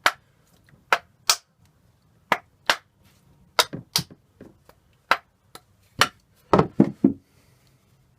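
Sharp knocks struck irregularly, about fifteen, some in quick pairs, with a run of heavier blows near the end: banging on a Lewmar 34 self-tailing winch to drive out a stuck plastic insert that has been soaked in petrol to loosen it.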